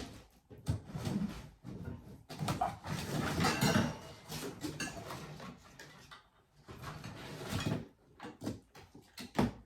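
Parts and packaging being lifted out of a cardboard box: irregular rustling of plastic and cardboard with a few sharp knocks.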